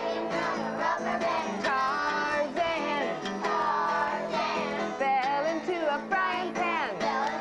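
A woman and children singing a song together, accompanied by an acoustic guitar.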